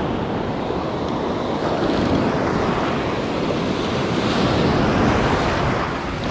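Ocean surf breaking and washing up the beach, a steady rush of water that swells about four to five seconds in, with wind on the microphone.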